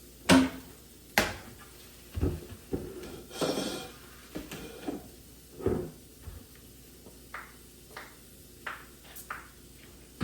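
Kitchen clatter of pots, pans and dishes being handled and set down: a string of knocks, the loudest in the first second or so, one short scraping stretch, then lighter clicks.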